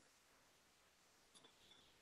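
Near silence: room tone in a pause between speech.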